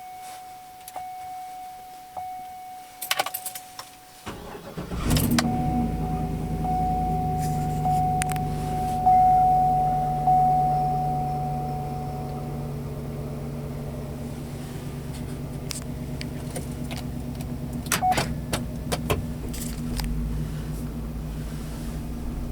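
Cold 6.2-litre V8 cranked and started with the key, catching about four seconds in, then running at a steady cold idle with a knock. A steady high tone sounds before the start and for several seconds after it, and the key and ignition click before the start.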